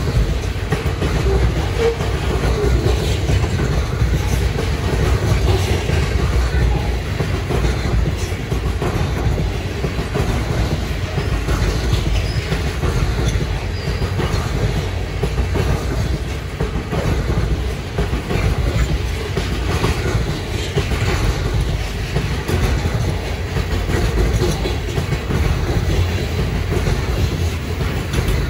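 Covered hopper cars of a freight train rolling past close by: a steady rumble of steel wheels on rail with clickety-clack.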